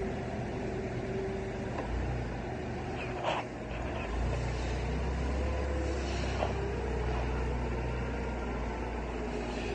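Forklift running as it drives, a steady low hum with a faint whine over it. Two short knocks, the louder about three seconds in and another about six and a half seconds in.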